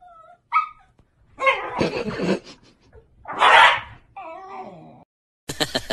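Two Shiba Inus vocalizing at each other over a tennis ball: short whiny yips and grumbles that bend in pitch, with one loud harsh cry about three and a half seconds in.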